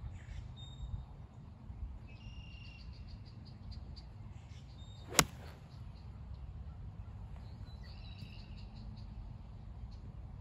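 Golf iron striking the ball off the fairway turf: a single sharp impact about five seconds in.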